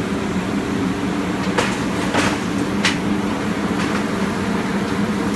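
Steady machinery hum of a CRT glass-cutting machine running, with a few sharp clicks about one and a half to three seconds in.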